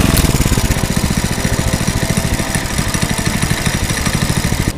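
Single-cylinder four-stroke engine of a Honda GX200-clone go-kart buggy running at low revs right beside the microphone, with a steady rapid chugging beat.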